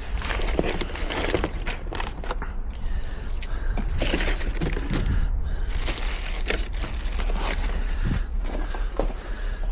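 Scattered knocks, clicks and scrapes of tools and parts being handled, over a constant low rumble.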